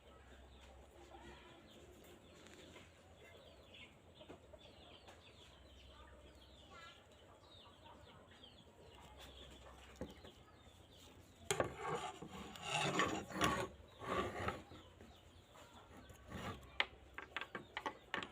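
Chickens clucking faintly in the background, then a few seconds of loud rough scraping and rubbing starting a little past halfway, followed by scattered sharp clicks and knocks near the end.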